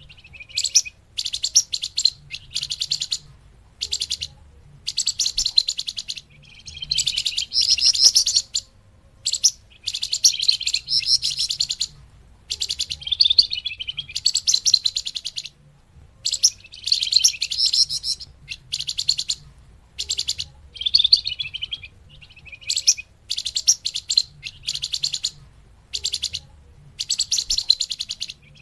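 Small songbird known in Indonesia as the flamboyan calling, played as a bird-lure recording: a long series of bursts of rapid, high, chattering chirps, each lasting about half a second to a second and a half, separated by short pauses.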